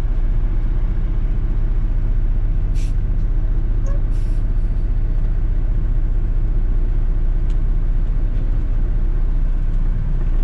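Heavy tow truck's diesel engine running steadily, with two short hisses of air about three and four seconds in.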